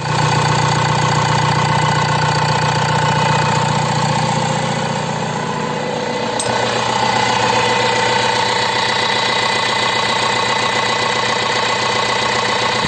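Renault Master's 2.5 G9U four-cylinder turbodiesel running steadily at idle, with the usual diesel clatter, after its injection-pump timing has been set right. Its tone shifts slightly a little past halfway.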